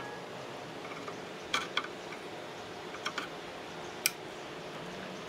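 A few light plastic clicks and taps as a wiring-harness connector is handled, with a sharper click about four seconds in as the connector snaps into place.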